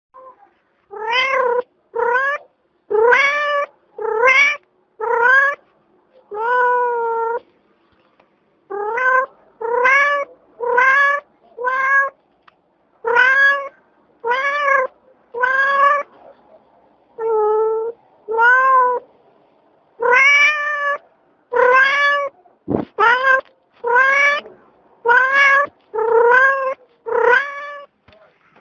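Domestic cat meowing over and over, about twenty short meows roughly a second apart, each rising and then dipping slightly in pitch.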